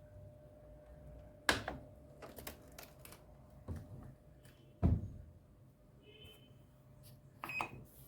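Clicks and knocks from handling a Toshiba top-loading washing machine, the two loudest about a second and a half in and about five seconds in, with short high electronic beeps about six seconds in and near the end.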